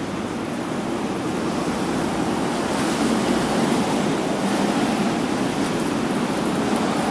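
Steady wash of city traffic on a wet street, with tyres hissing on wet asphalt; it grows slightly louder a few seconds in.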